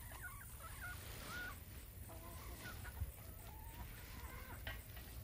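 Chickens clucking, a series of short calls scattered through, with a single knock about three seconds in.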